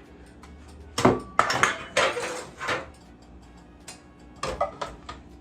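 Metal cooking pot clanking and clattering as it is handled off the stove, with a loud clank about a second in, a run of clatter after it, and a few more knocks near the end.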